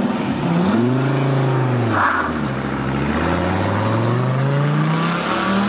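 Dodge Viper's V10 revving as the car pulls away and accelerates, the pitch rising and falling several times and ending in a long climb.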